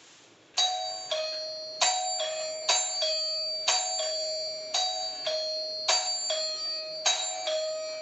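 Anchor ding-dong doorbell chiming over and over, starting about half a second in: about seven two-note ding-dongs roughly a second apart, each note struck sharply and ringing on. It is loud.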